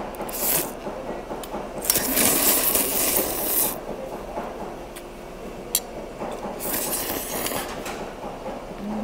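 Jjamppong noodles slurped in three noisy bursts, the longest about two seconds, with a single sharp utensil clink about halfway through.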